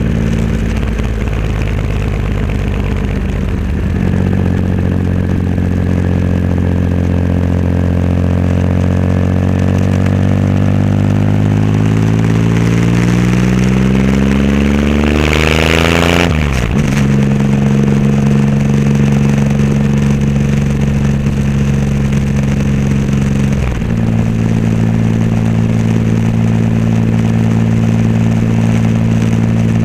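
Triumph Rocket III Roadster's big three-cylinder engine through a custom exhaust, on the move: the engine note climbs steadily as the bike accelerates, drops sharply at a gear change about halfway through, then holds at a steady cruise with a short dip in the note near the end.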